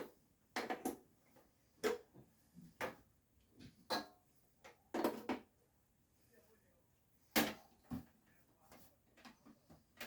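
Irregular handling noises: short knocks, clatters and rustles as objects are moved about and put down, the loudest a sharp knock about seven seconds in.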